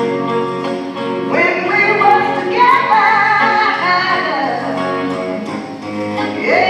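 Background music: a song with a band and a female singing voice holding and sliding long notes.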